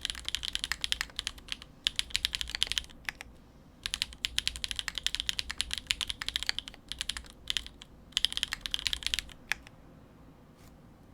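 Typing on a Monokei Kage custom mechanical keyboard with Gateron RAW linear switches, a polycarbonate plate and GMK keycaps: fast runs of keystrokes in four bursts with short pauses, a couple of single strokes after the last burst, then the typing stops.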